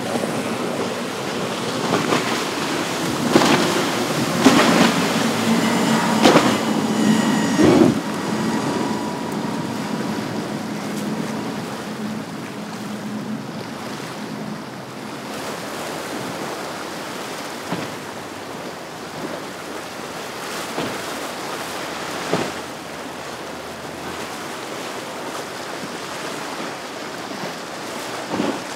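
Powerboat engines running hard through breaking surf and choppy water, with the engine drone loudest over the first several seconds. After that comes a steadier wash of waves with a few sharp thumps.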